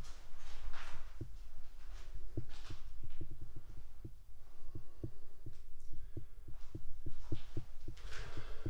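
Footsteps on a concrete floor strewn with debris, heard as irregular low thuds several times a second with an occasional scuff, over a steady low hum.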